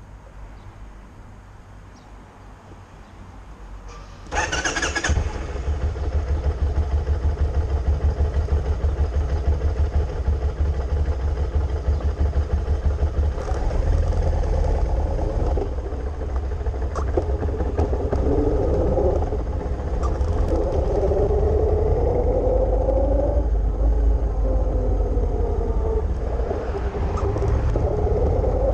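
Kawasaki Vulcan 1500 Nomad's V-twin engine started about four seconds in, catching at once and settling into a steady, pulsing idle. In the second half it pulls away, the engine note rising again and again through the gears.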